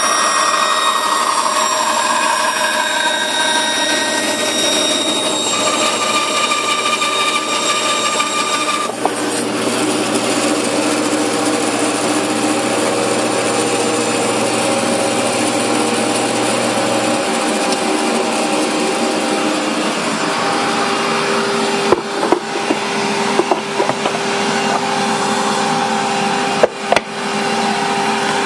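Band saw running and cutting through the thin wooden sides of a box, a steady whine with saw noise. Late on, a few sharp knocks.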